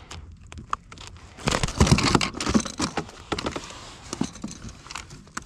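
Knocks, clatter and rustling as a freshly landed red grouper is handled on a kayak, with a loud cluster of thumps and knocks about one and a half to two and a half seconds in and scattered clicks around it.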